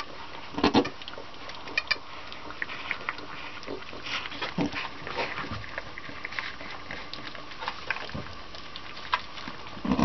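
Miniature silky fainting goat doe licking her newborn kid: wet licking and straw rustling in many short clicks, with a few soft low grunts, the loudest about a second in.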